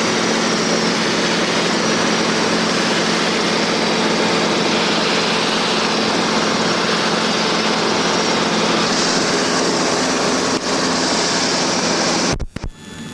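Steady drone of a small single-engine Cessna's piston engine and propeller heard inside the cockpit. Near the end the sound cuts out abruptly with a couple of clicks as the microphone connection changes, and afterwards the engine is much fainter.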